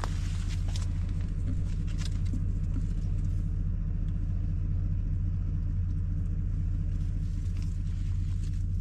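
An engine running steadily, giving a low, even hum, with a few faint ticks and rustles over it.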